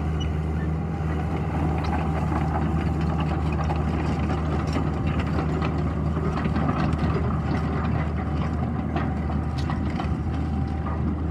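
Case CX80 crawler excavator's diesel engine running at a steady pitch while the machine tracks down off a gravel pile, with scattered light clanks and crunches from the tracks on gravel.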